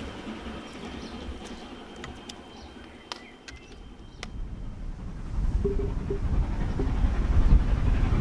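Approaching steam locomotive working hard, heard as a low rumble that starts about five seconds in and keeps building. Before it comes, only quiet outdoor ambience with a few sharp clicks.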